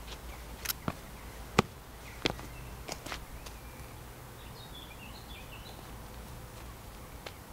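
Footsteps on a dirt path, a handful of sharp crunches and snaps in the first three seconds, then a bird chirping briefly about halfway through.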